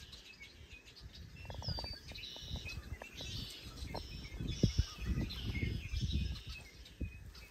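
Songbirds chirping and singing in short repeated high phrases, over a low rumbling noise with a few brief knocks about two-thirds of the way through.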